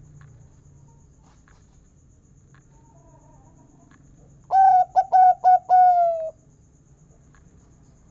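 Zebra dove (perkutut) singing one phrase about halfway through: a quick run of short coos that ends in a longer, slightly falling note.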